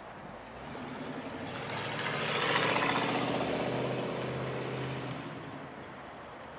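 A motor vehicle drives past: its engine and tyre noise swell to a peak about half way through, then fade away.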